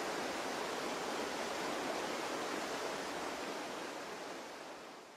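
Steady rushing water of a river, fading out over the last second or two.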